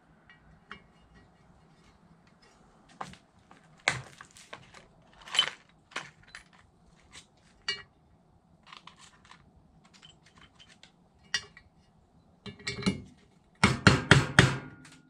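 Scattered metal clinks of tools and small parts being handled. Near the end comes a quick run of about five hammer taps on a tool set against the aluminium engine side cover, driving a part into it.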